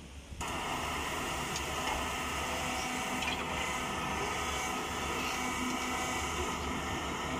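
Caterpillar hydraulic excavators running: a steady diesel rumble with a whine from the hydraulics. It comes in abruptly about half a second in.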